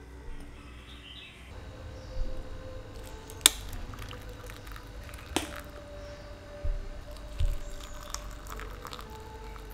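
Hot water poured from a kettle into two small glass tumblers of butterfly pea flowers, with two sharp clinks and a few soft knocks along the way.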